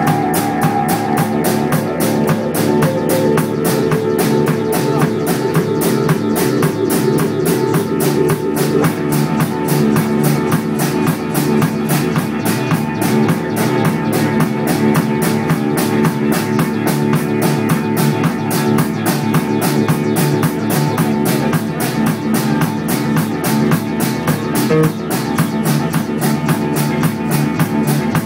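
Live rock band playing loud through stacked amplifiers: electric guitar and bass guitar over drums keeping a steady fast beat.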